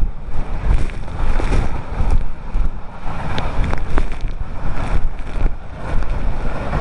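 Heavy falling water at the foot of a tall waterfall, with the wind and spray it throws off buffeting the microphone in uneven gusts.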